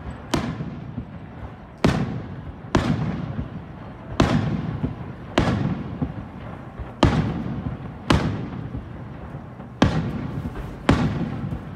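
Aerial firework shells bursting in the sky: nine sharp bangs, one every second or so, each followed by a rolling echo that fades away.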